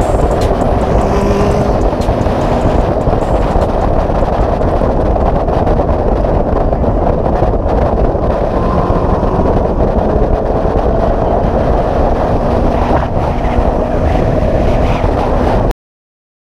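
Wind rushing hard over a motorcycle-mounted microphone at freeway speed, with the sport bike's engine running steadily underneath. It cuts off suddenly near the end.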